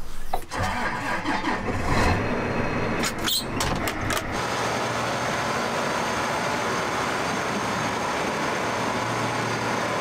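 A few clicks and knocks, then an engine starts about four seconds in and runs steadily.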